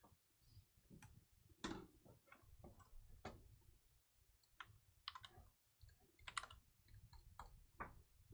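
Faint, irregular small clicks and taps, a dozen or so scattered over several seconds.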